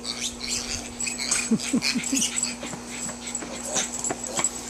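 A small animal running and calling: four quick short calls, each falling in pitch, about a second and a half in, among light scuffs and clicks.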